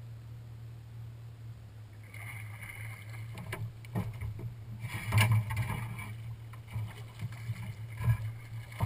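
A hooked fish thrashing and splashing at the surface beside the boat while being brought in and netted, with sharp knocks and splashes, the loudest about five seconds in and again near the end, over a steady low hum.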